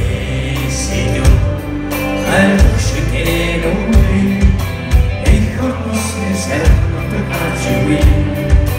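Heavy metal band playing live through a PA: electric guitar through Marshall amplifiers, drums hitting a steady beat about every two-thirds of a second, and a singer on the microphone, heard from the audience.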